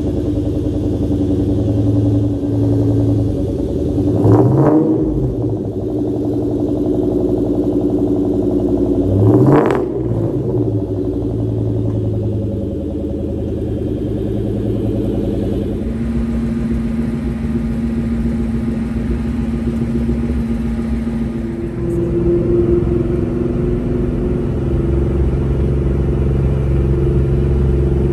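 Ford Mustang SVT Cobra's V8 idling, blipped twice with quick revs that rise and fall, then running steadily as the car moves off and drives away.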